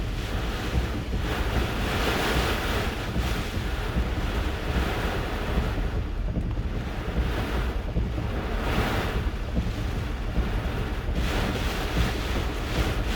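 Hurricane eyewall wind blowing in gusts that swell and fade every few seconds over a steady low rumble of wind.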